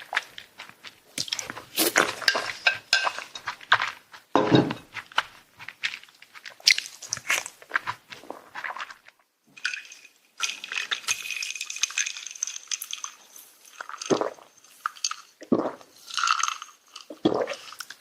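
Close-miked eating sounds: chewing and crunching food, with utensils clicking and clinking against dishes in quick irregular taps.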